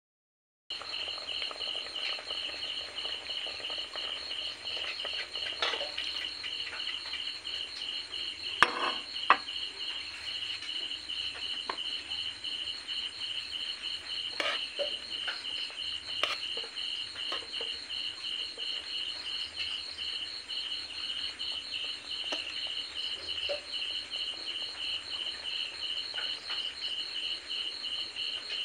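A steady chorus of insects trilling in fast, even pulses at two high pitches, with a few sharp knocks, the loudest two close together about nine seconds in.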